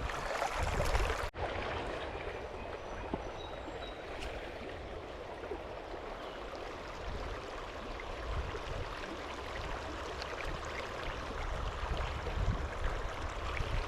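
Creek water rushing and gurgling in a steady, even wash, with a brief dropout just over a second in.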